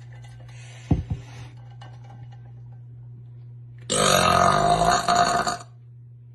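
A woman's long, loud burp lasting nearly two seconds, starting about four seconds in. A brief low thump comes about a second in.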